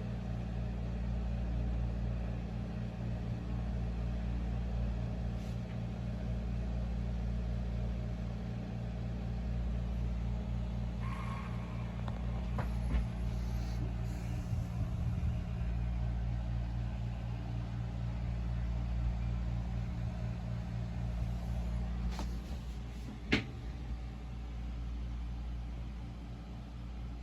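Lian Li UNI FAN SL120 120 mm PC fan that is not spinning but making a steady low buzzing hum, the noise of the faulty fan. A few short clicks, the loudest about three-quarters of the way through.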